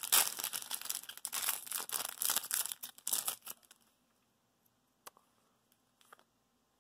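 Magic: The Gathering booster pack's foil wrapper crinkling and tearing open for about three and a half seconds. A few faint clicks of the cards being handled follow.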